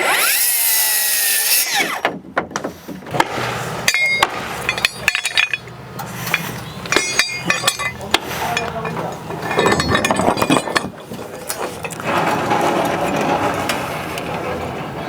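A power tool whining briefly with shifting pitch, followed by a run of sharp knocks and metallic clinks, then a steady mechanical noise near the end.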